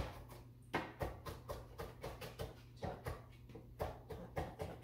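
Knife chopping pickled jalapeños on a cutting board: quick, repeated taps of the blade on the board, about four a second.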